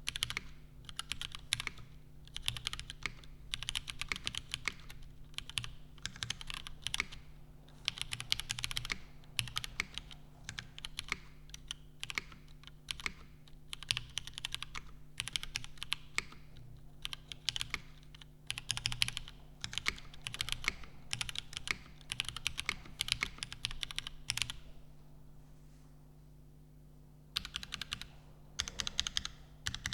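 Custom mechanical keyboard with lubed Cherry MX Black linear switches on a nylon plate and GMK keycaps being typed on in fast, continuous runs of keystrokes, with a pause of about three seconds near the end. A faint steady low hum sits underneath.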